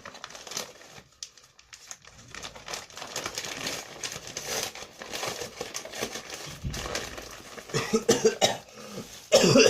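Mail packaging being handled and opened, an irregular crinkling and rustling, with a few louder short sounds, like coughs or voice, near the end.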